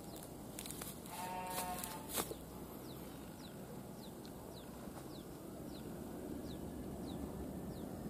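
A farm animal gives one drawn-out call of about a second, starting about a second in, followed by a sharp click. After it, a bird repeats short falling chirps over steady outdoor background noise.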